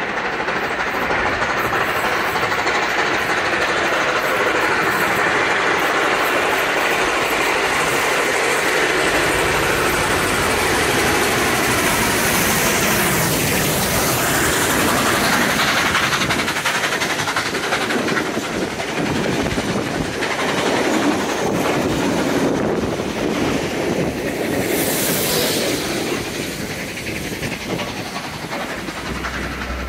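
A train running along the track close by, a steady rumbling noise of wheels on rail, with a brief high hiss about two seconds long near the end.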